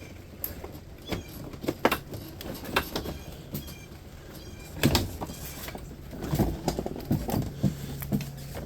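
Scattered clicks, knocks and clanks of metal parts being handled as a scrapped dehumidifier is taken apart, over a low steady hum.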